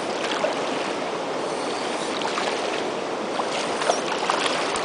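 Water rushing steadily over a waterfall, a continuous even roar of falling water.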